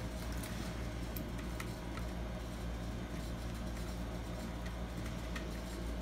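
A steady low hum with a few faint, light clicks from lock hardware being handled as a wire is fed through the door lock.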